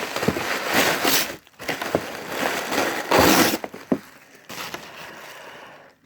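Crinkling and rustling of plastic packaging being handled, loudest for the first three and a half seconds, then dropping to a faint rustle.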